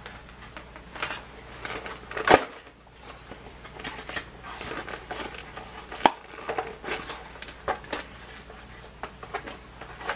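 Toy packaging being handled and opened by hand: irregular rustling and clicking of plastic and cardboard, with a sharp knock about two seconds in and another sharp click about six seconds in.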